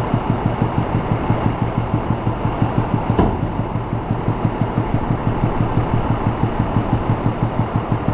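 Ford F-550 dump truck's engine idling with a steady rhythmic pulse while the dump bed comes down. There is a single sharp knock about three seconds in as the bed settles onto the frame.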